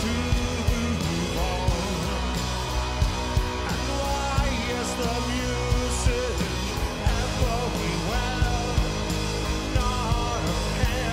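Live rock band playing: a male singer sings over a steady drum beat, electric guitars and bass.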